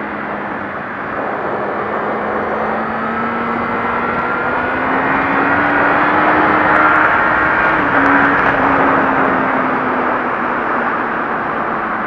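Suzuki GSX-R 750 streetfighter's inline-four engine running at cruising speed under a heavy rush of wind noise, its note climbing slowly through the middle and easing back toward the end.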